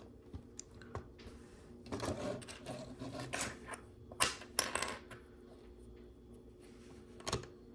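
Small plastic LEGO pieces clicking and rattling as they are handled and pressed together, with a few sharper clicks about four seconds in and again near the end.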